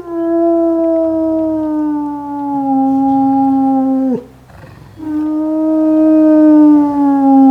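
A farm or pet animal giving two long, drawn-out calls, each about four seconds long, with a steady, slightly falling pitch that drops off sharply at the end.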